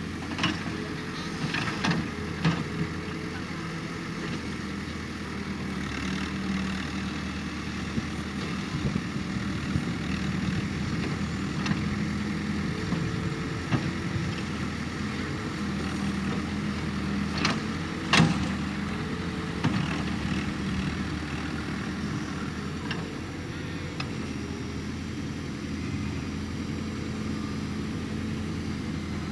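Excavator's diesel engine running steadily, with a few sharp knocks of metal on top, the loudest about two-thirds of the way through.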